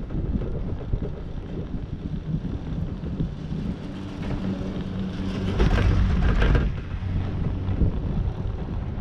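Wind buffeting the microphone on a moving high-speed six-pack chairlift. About four seconds in, a hum and rumble build up and are loudest around six seconds, as the chair rolls over a lift tower's sheave train. They then fade back to wind.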